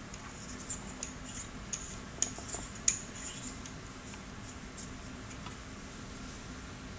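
Light metallic clicks and ticks of black steel tool-holder parts being fitted together and turned by hand, thickest in the first three seconds with two sharper clicks a little after two seconds and near three seconds, then sparse. A faint steady hum underneath.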